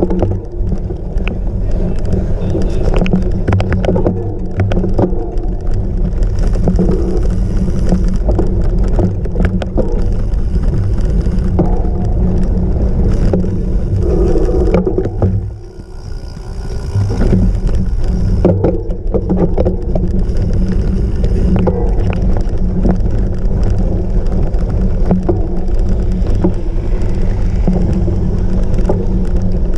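Cyclocross bike rattling and clattering over rough off-road ground, with wind rushing over the microphone; the noise drops away briefly about halfway through, then picks up again.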